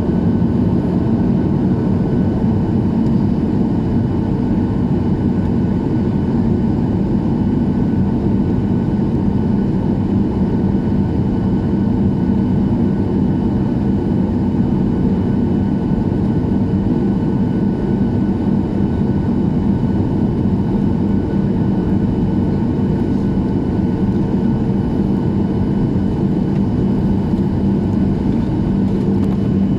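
Steady cabin noise inside a Boeing 737-800: the CFM56-7B jet engines and airflow making an even rumble with a few faint constant whining tones.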